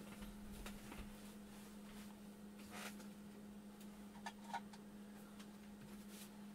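Near silence: faint room tone with a steady low hum and a few soft, scattered clicks and rustles.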